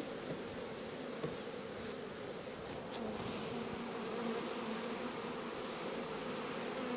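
A captured swarm of honeybees buzzing steadily while being hived into a new box of frames, the hum growing a little louder about halfway through.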